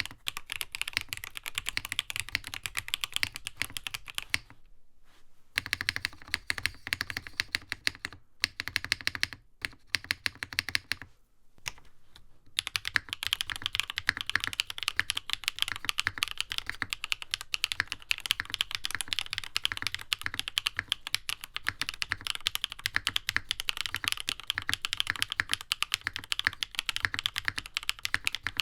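Rapid typing on a NovelKeys Classic TKL mechanical keyboard: a dense stream of key clacks, broken by short pauses about five, eight and eleven seconds in.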